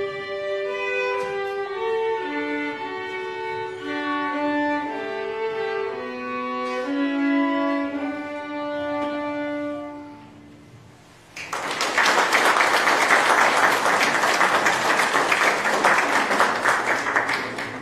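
Violins playing a tune that ends on a long held note, fading out about ten seconds in. Then an audience breaks into applause, louder than the music, and claps for about six seconds.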